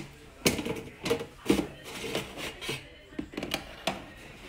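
Metal racks and the drip tray of a countertop air fryer oven sliding and clattering in and out on their rails: a run of sharp knocks and scrapes, about seven of them.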